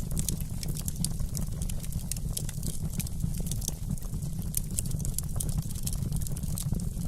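Wood fire crackling: a dense, irregular run of sharp pops and snaps over a steady low rumble.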